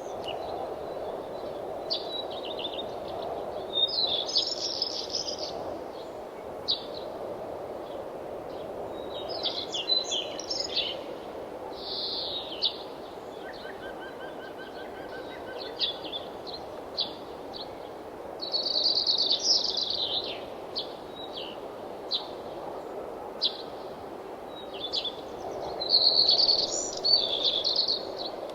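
Several songbirds singing and chirping in short, repeated phrases, over a steady rushing background of wind. The loudest bursts of song come about four seconds in, around ten seconds, around nineteen seconds and near the end.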